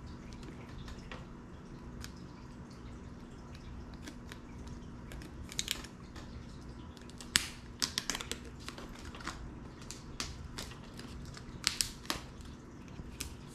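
Small sharp clicks and scratches of a pointed tool being drawn along a cardboard box to slit its tape seals. They come scattered and more often in the second half, over a steady low hum.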